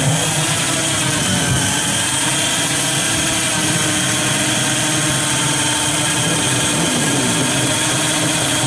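Bored-up underbone drag-bike engine held at high revs at the start line, a loud steady buzz whose pitch wavers slightly.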